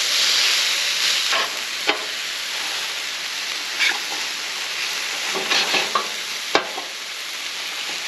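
New York strip steaks frying with a steady sizzle, with a few sharp clicks and pops from the cooking.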